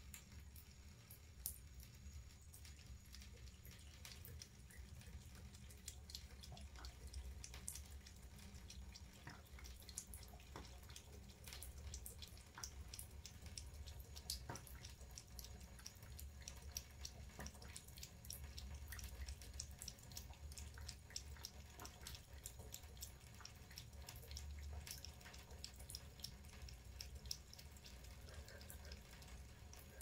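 Faint water at a sink: a thin trickle from a tap with many small, irregular drips and splashes, over a low steady hum.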